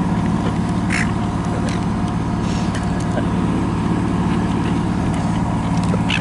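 Seagulls squawking twice, about a second in and near the end, over a steady low engine hum.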